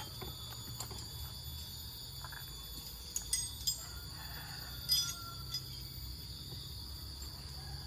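Steady high-pitched drone of insects, with a few sharp clicks about three to five seconds in over a low steady rumble.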